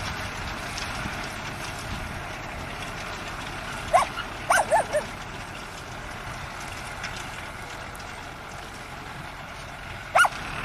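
Farm tractor running steadily as it pulls a potato digger through the soil. A dog gives several short yips in quick succession about four seconds in, and one more near the end.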